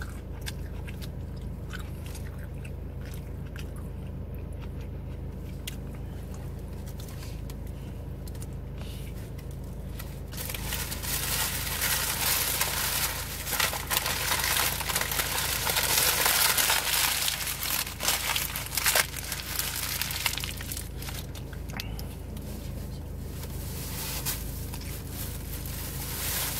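Chewing and biting into a sandwich close to the microphone, then, about ten seconds in, louder crinkling of its paper wrapper for over ten seconds before it settles again. A steady low hum runs underneath.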